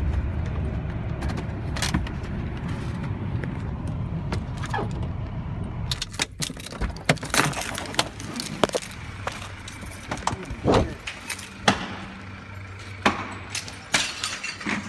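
Car engine and road rumble heard inside the cabin, which cuts off abruptly about six seconds in. A string of sharp clicks and knocks follows as things in the car are handled.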